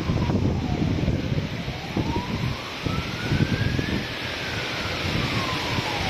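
A siren wailing slowly, its pitch climbing over about three seconds and falling again, with a new climb starting near the end. Under it, strong wind buffets the microphone in gusts over the steady hiss of heavy rain.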